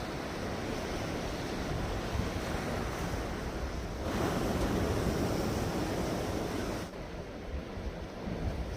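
Sea waves washing against the shore, with wind buffeting the microphone; the wash swells louder about halfway through and eases off near the end.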